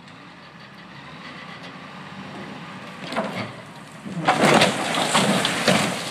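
An old railway post office car tipping over and crashing onto its side. The noise builds, a crack comes about three seconds in, and then a loud crash of impacts about four seconds in, with crunching going on as the body settles.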